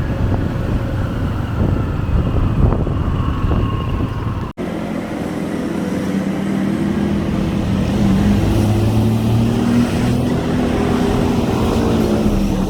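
Vehicle engine running, with a steady low drone under a wash of motion noise. There is a brief cut-out about four and a half seconds in; after it the drone is steadier and rises a little in pitch.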